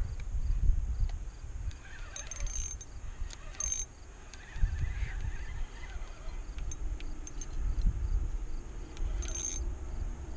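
Fishing reel worked while fighting a hooked trout on a bent rod, giving a few short mechanical bursts of reel noise over a low, steady rumble.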